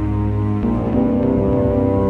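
Background music: sustained low chords held steadily, shifting to a new chord about half a second in.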